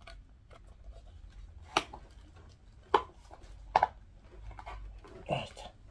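Hard plastic clacks and light scraping as a figure's foot peg is worked into its black plastic display base, with three sharp clacks about a second apart.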